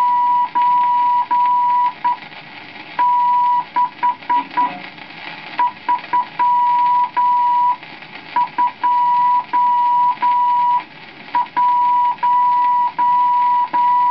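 Morse code from an HMV gramophone instruction record: a steady tone keyed in dots and dashes, spelling the figures 9, 6, 3, 2, 1 with even spacing between each figure. Record hiss and a few clicks lie beneath it.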